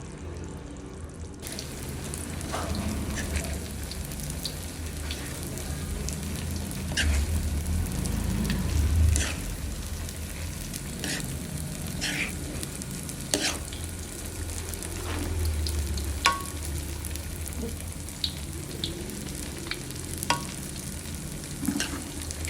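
Food sizzling and frying in a pot, with a utensil stirring and knocking against the pot in scattered sharp clacks over a steady low rumble. This sound begins about a second and a half in.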